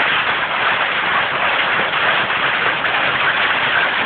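Hail falling hard: a dense, steady patter of hailstones striking surfaces.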